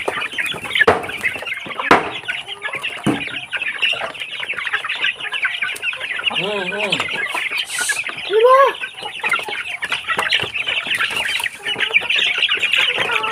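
A flock of Barred Plymouth Rock chickens clucking busily while feeding, with wings flapping as they jostle. Louder squawking calls stand out about six and a half and eight and a half seconds in.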